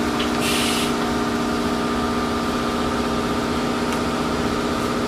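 Tortilla factory machinery running with a steady hum, several even tones held throughout. A brief hiss about half a second in.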